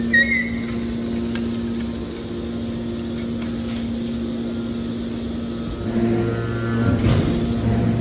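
Hydraulic power unit of a scrap metal baler running with a steady hum while the ejection cylinder pushes a compressed bale out of the chamber. About six seconds in it grows louder and a lower hum joins in, with a brief knock soon after.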